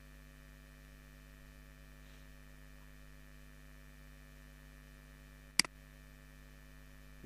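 Steady low electrical hum, with one sharp click about five and a half seconds in: a computer mouse button clicked to pick a point.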